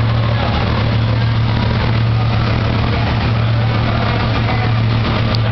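Bugatti Veyron's quad-turbocharged W16 engine idling steadily, a low even hum with no revving.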